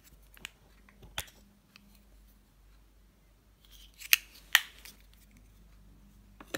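Small plastic makeup containers, among them a black plastic eyeshadow pot, clicking and tapping as they are handled: a few sharp separate clicks, the two loudest close together a little past halfway.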